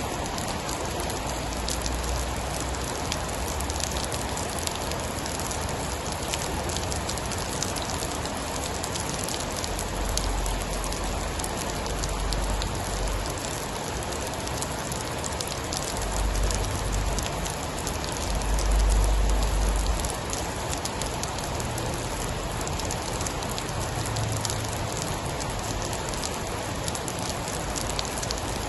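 Steady, heavy rain pattering, with low thunder rumbles swelling up several times; the loudest rumble comes about two-thirds of the way in.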